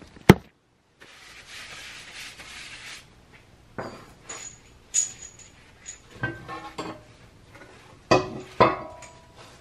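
Steel parts being handled on a hydraulic shop press: a sharp click near the start, a soft hiss for a couple of seconds, then a string of metallic clinks and clanks, some ringing briefly, the loudest two near the end.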